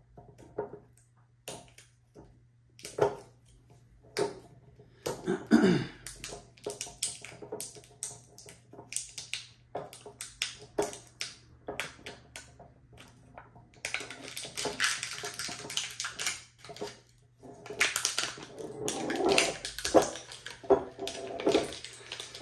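Fingers and nails picking at the seal over the neck of a whiskey bottle: scattered sharp clicks and scratches, with longer stretches of crinkling and tearing as the seal is worked off, the heaviest a little past the middle and again near the end.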